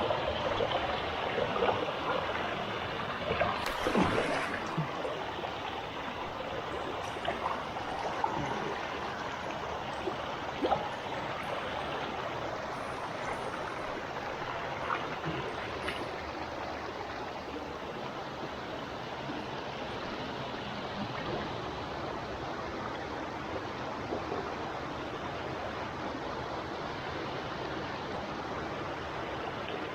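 River water rushing and babbling steadily over rocks, with a few sharp knocks or splashes in the first half.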